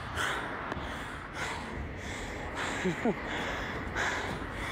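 Heavy, gasping breaths of a person out of breath from running, a breath roughly every second.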